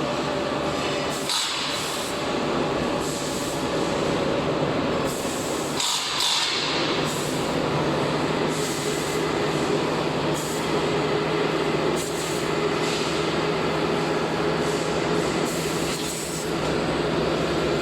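TDF1800 tire-derived-fuel shredding line running, giving a steady heavy machine hum and grinding. Short bursts of harsher, higher-pitched scraping noise come about a second in and again around six seconds in.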